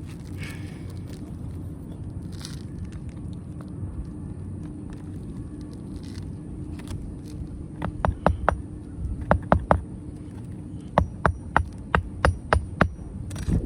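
Hammer blows driving a roofing nail through asphalt shingles: a quick run of strikes about eight seconds in, a few more a second later, then a steady series of about eight blows near the end. A steady low hum runs underneath.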